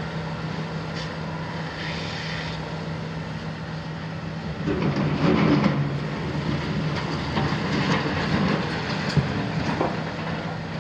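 Hitachi 350 excavator's six-cylinder Isuzu diesel running steadily with a constant low hum as the demolition boom works. About halfway through the bucket digs into concrete rubble with a louder stretch of scraping and clattering, and scattered knocks follow.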